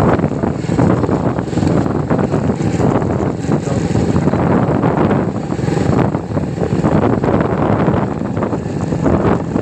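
Wind buffeting the microphone on a moving vehicle, over the steady running noise of the vehicle itself.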